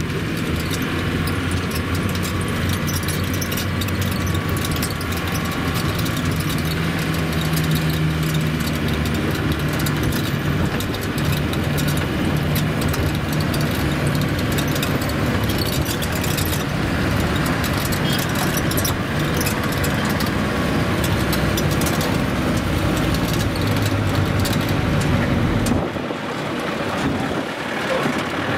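Vehicle engine running steadily while driving on a rough dirt road, heard from inside the cab, with many small rattles and knocks over the engine note. Near the end the engine note drops for a moment.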